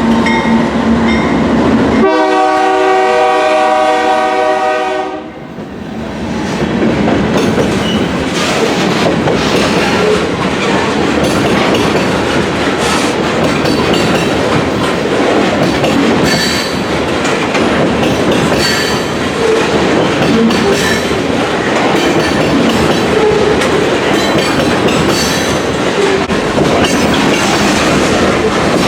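A diesel freight locomotive's air horn blows a multi-note chord, which stops about five and a half seconds in. A freight train then rolls past with steady, loud wheel-and-rail noise.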